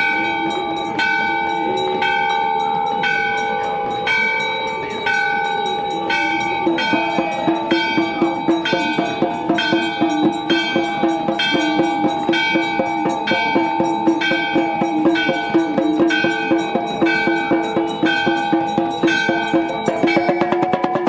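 Temple bells struck in a steady rhythm, about once a second at first and then about twice a second from around six seconds in, their tones ringing on between strikes.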